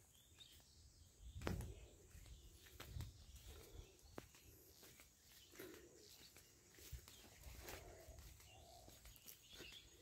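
Faint outdoor field ambience with scattered soft footsteps and clicks from walking with a handheld phone. The loudest is a low thump about a second and a half in.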